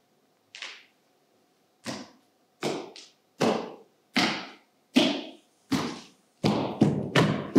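A drum struck in single, evenly spaced beats, each ringing briefly, quickening to three or four beats a second near the end.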